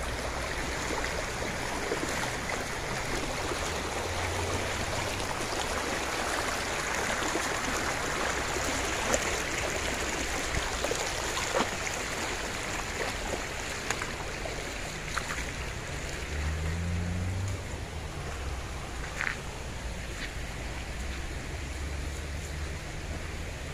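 Shallow stream rushing and splashing steadily over stones and small rapids.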